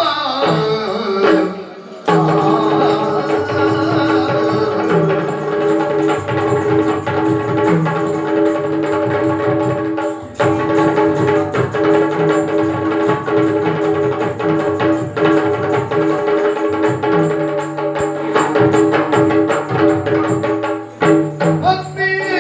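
Yakshagana accompaniment: a steady held drone with fast hand-drumming on a barrel drum, dropping out briefly about two seconds in and again around ten seconds.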